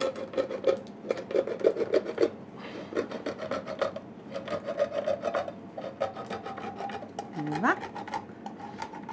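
Hand-held can opener cutting around the lid of a metal tin can: a rapid series of short rasping, clicking strokes, thickest in the first couple of seconds.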